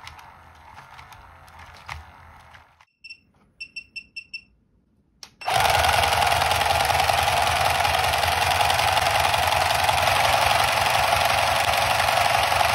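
Small geared motor and plastic gear train of a motorised toy hand running overdriven on a bench power supply: first a quieter rattling whir at 10 volts, then a run of short high beeps, then from about five seconds in a much louder, steady buzzing gear rattle at 15 volts.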